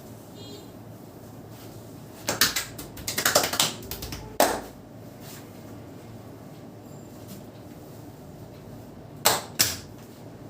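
A barber's hands slapping in a massage: a quick run of sharp slaps a couple of seconds in, one more shortly after, then two close together near the end.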